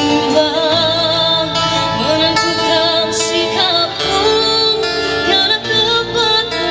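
A girl singing a wavering melody into a microphone, backed by a live amplified band of electric and acoustic guitars, bass guitar and drums.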